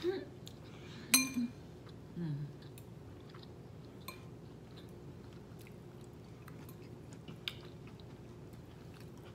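Close-miked chewing of a grilled meal, with soft wet mouth clicks and smacks. A sharp ringing clink of cutlery or glass comes about a second in, and there are two brief low hums near the start.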